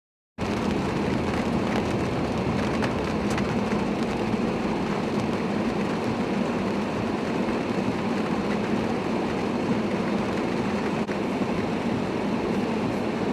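Strong storm wind blowing, a loud continuous rushing roar that cuts in suddenly just after the start and stays steady.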